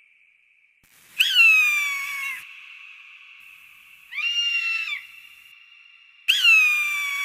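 Hawk calling: two long, loud screams about five seconds apart, each starting with a sharp high note that slides down and trails off, with a shorter, flatter call between them.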